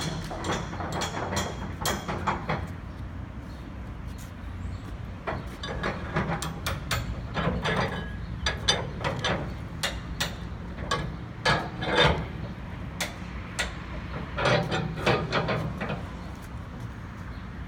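Flatbed trailer strap winch being turned with a crank bar to tension the tarp system's winch strap: clicking and metallic knocks in irregular clusters, several groups a few seconds apart.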